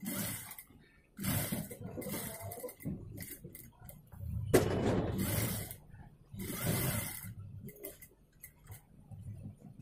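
Industrial single-needle sewing machine running in several short bursts of about a second each, stitching a contrast facing strip along a neckline edge.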